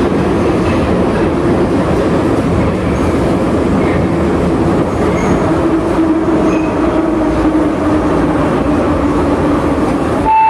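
Metro train running, heard from inside the carriage: a loud, steady rumble of wheels and running gear. A faint whine underneath falls slightly in pitch in the second half as the train slows into a station.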